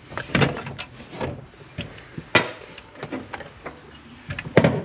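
Irregular clunks and knocks of hand tools and metal parts as a 1980 Camaro's steering column is worked loose from its bracket, the loudest about halfway through and near the end.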